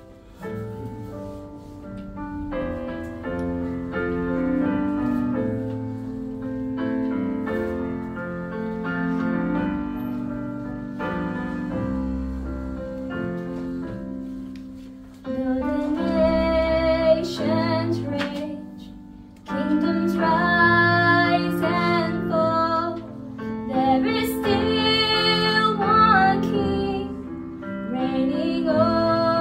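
A woman singing solo to piano accordion accompaniment: the accordion plays an introduction alone, and her voice comes in about halfway through.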